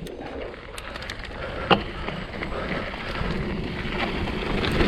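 Mountain bike riding over a rough trail: tyre noise and rattling with scattered clicks and knocks, growing louder as speed picks up.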